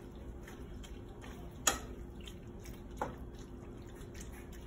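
Scattered light clicks and taps of a cooking utensil against a pan as chicken is put on the pasta. The loudest is a sharp click nearly two seconds in, with another about a second later, over a faint steady hum.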